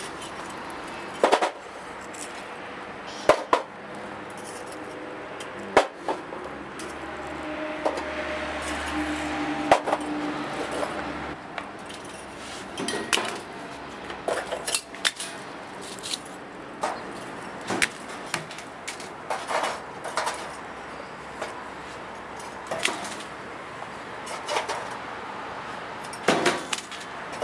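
Scattered metallic clinks and knocks of tongs against a metal box and wire cage while burning firewood is moved under the box. A low steady hum runs for a few seconds about a third of the way in.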